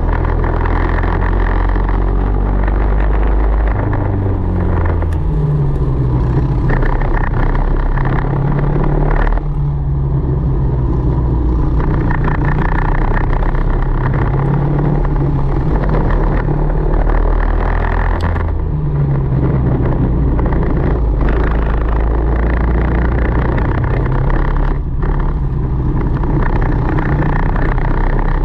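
Tillotson 225 kart's single-cylinder four-stroke engine running at race pace, heard close up, its revs climbing and falling away several times as the driver accelerates and lifts.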